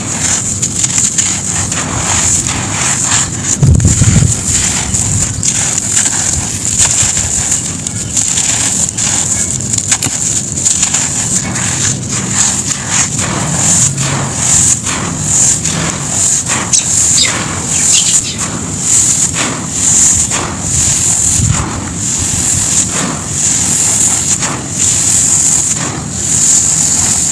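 Dry, grainy sand-cement clumps crumbling onto a hard floor: a run of many short, gritty crunches and crackles with a sandy hiss. Two heavier thuds come about four seconds in and near three-quarters of the way through.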